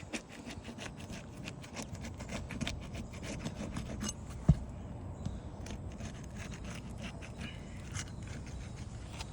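Roof snake being worked under asphalt shingles, repeated scraping and clicking as it breaks the sealant bond between the shingle courses, with one sharp knock about halfway through.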